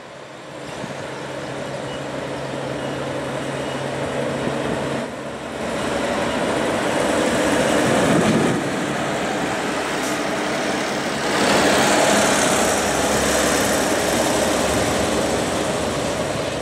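Portuguese Railways diesel multiple unit pulling out of the station. Its engine hums steadily at first, then after about five seconds the sound grows much louder and fuller as the train moves off under power and passes close by, easing off near the end.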